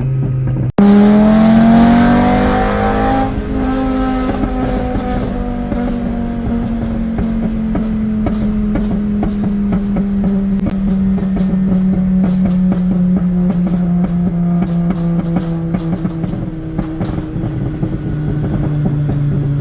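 Tuned VW Jetta 2.5's inline-five engine and exhaust: the revs rise quickly about a second in, then fall slowly on the overrun while the exhaust crackles and pops many times. The crackles come from the tune, which is set up to make them.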